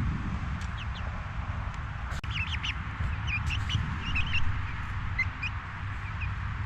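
Young chickens cheeping: many short, high peeps, some rising and falling, coming in scattered clusters over a steady low rumble.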